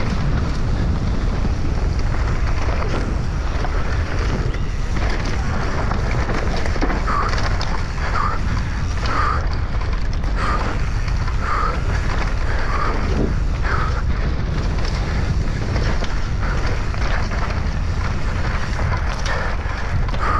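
Wind buffeting the camera microphone over the low rumble and rattle of an enduro mountain bike running fast downhill over a leaf-covered dirt trail. From about seven seconds in, a short high squeak repeats about once a second.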